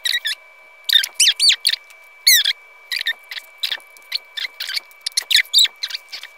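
Short, high-pitched plastic squeaks in quick irregular clusters, from a small plastic Super Mario mini pinball toy being handled and its plastic parts rubbed.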